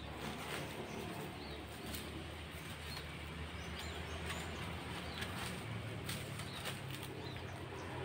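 Scattered short, high bird chirps over a low steady rumble, with a few sharp clicks and rustles of brush being handled.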